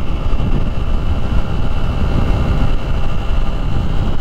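Steady wind rush over the microphone, mixed with the 2023 Honda XR150L's air-cooled single-cylinder engine holding a steady cruise at about 50 mph.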